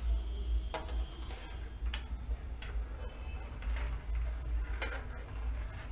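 Metal spatula scraping through a thick green paste in a nonstick wok, one short stroke about every second, five in all, over a steady low rumble.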